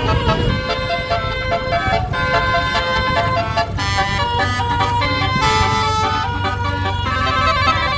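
Telolet musical air horn on a tour bus, a Basuri-type multi-tone horn, playing a tune: several horn notes sound together and change in steps about every second. The bus engine runs underneath.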